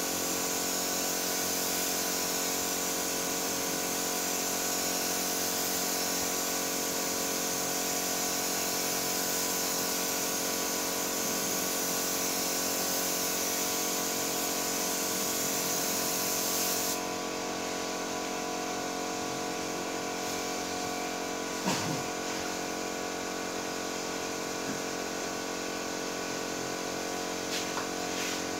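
Compressed-air automotive paint spray gun hissing steadily over a constant machine hum. The spray hiss cuts off about two-thirds of the way through, leaving the hum. A sharp click comes a few seconds later.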